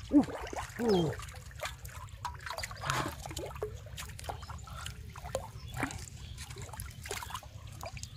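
A hooked fish thrashing at the water's surface, with irregular splashes, sloshing and dripping water as it is drawn in on the line. Near the start, two short falling vocal exclamations are the loudest sounds.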